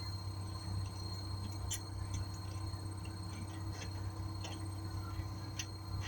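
Scattered light clicks of a hand tool and bolts being worked loose by hand, a few seconds apart, over a steady low hum.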